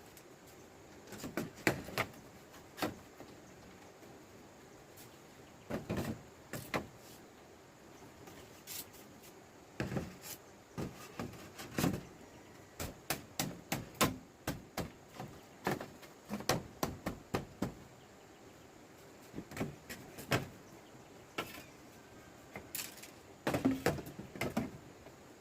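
Scattered knocks, taps and clatter of hard objects being handled, coming in irregular clusters with short pauses between them.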